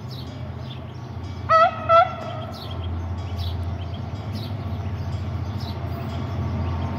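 Diesel locomotive at the head of a petroleum tank train sounds two short horn toots about a second and a half in, over the low, steady drone of its engine, which grows a little louder as it approaches.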